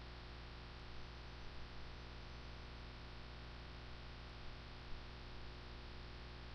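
Faint steady electrical hum and hiss of the recording's noise floor, with a few faint clicks.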